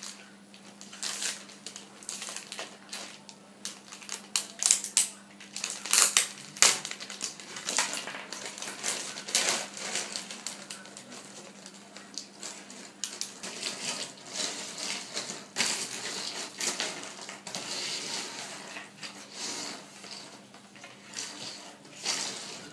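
A clear plastic bag crinkling as it is handled and shaken out, while small plastic animal figures clatter and are shuffled on a tabletop, in a run of quick clicks and rustles.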